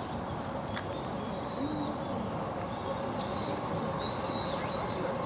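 Birds calling with short, high chirps, once a little after three seconds in and again in a longer run about a second later, over a steady background murmur of distant voices.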